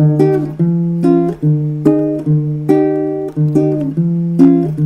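Ukulele strummed in a rhythmic chord pattern, about two to three strums a second, each chord ringing on between strokes, with no singing.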